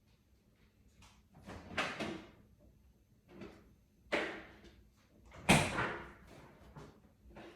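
Household doors being opened and shut: three knocks, each with a short fading tail, the sharpest two about four and five and a half seconds in, the last the loudest.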